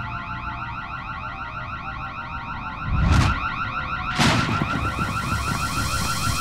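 Electronic burglar alarm from a bank, a rapid repeating warble. Two loud noisy bursts come about three and four seconds in.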